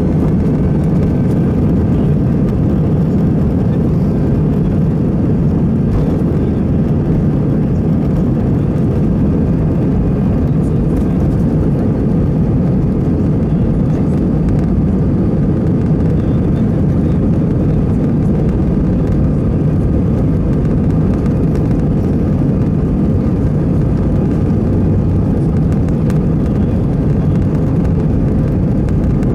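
Steady, loud cabin rumble of an Airbus A320 moving along the ground with its engines running, with a faint steady whine above it.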